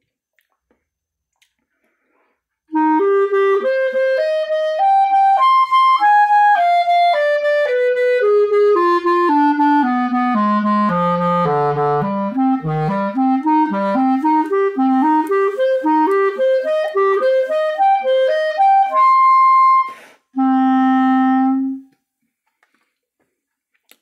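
Backun Alpha plastic B-flat clarinet playing, starting about three seconds in: a run climbs, falls stepwise to its lowest notes about halfway through, then zigzags back up. It ends on a held high note and, after a short break, a held low note.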